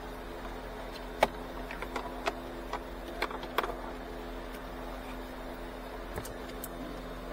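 Sharp clicks and snaps of plastic dashboard trim being pried loose with a screwdriver, bunched in a quick series over a couple of seconds, with a few more later. A steady low hum sits underneath.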